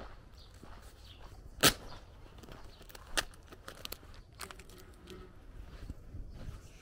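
Footsteps along a lane, with a sharp loud click about a second and a half in, a smaller click about three seconds in and a few light ticks after it.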